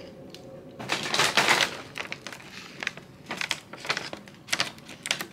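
Plastic popcorn bag crinkling as it is handled, in bursts: a long, loud rustle about a second in, then several shorter ones in the second half.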